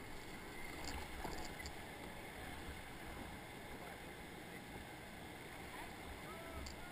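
Steady rush of high river water in a whitewater rapid, heard through a GoPro's waterproof housing, with a low rumble underneath.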